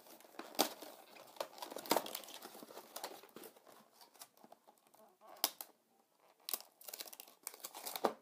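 Phone packaging being torn open and handled: plastic wrapping crinkling and tearing, with irregular sharp crackles and clicks throughout.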